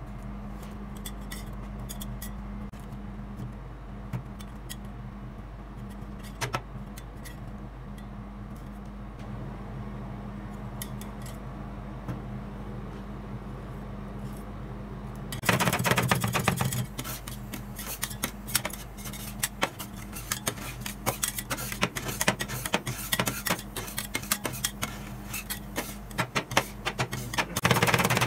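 Steel spatulas chopping and scraping on the frozen metal plate of a rolled ice cream machine, mashing fruit into the ice cream base, over a steady low hum. The first half holds only a few light taps; about halfway through the rapid, loud clacking of the blades begins and keeps on.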